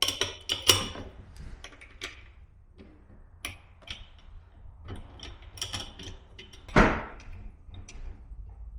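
Small metal parts and hand tools clicking and tapping as a coffee grinder is put back together, with one louder knock about 7 seconds in.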